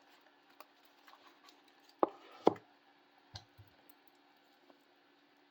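Light clicks and taps from handling a wristwatch and its plastic-wrapped packaging. There are two louder knocks about two seconds in, half a second apart, and a faint steady hum underneath.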